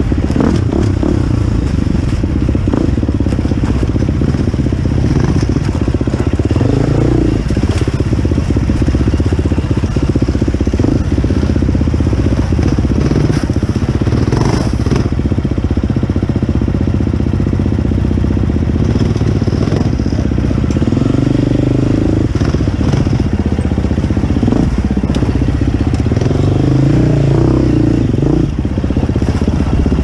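Dirt bike engine running at low, uneven revs, rising and falling with the throttle as the bike crawls over rocks, with a few knocks and clatters from the rough ground.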